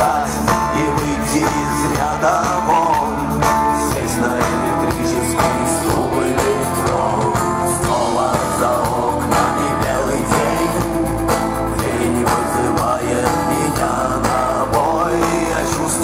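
Rock band playing live through a big PA, electric guitars, bass guitar and drums in an instrumental passage with no sung words, heard from the audience.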